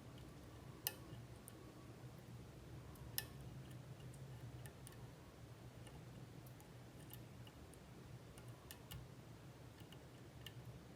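Faint metallic ticks and clicks of a lock pick working the pins of an MTL Jr lock under tension, with two sharper clicks about one and three seconds in, as the picker probes for the pin that will give a false set.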